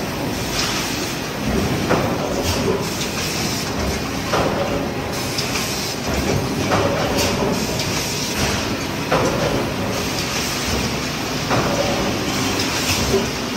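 800-ton Sumitomo hot forging press running over steady heavy machine noise, with a sharp metallic clank about every two and a half seconds that rings briefly as the press cycles through hot forgings.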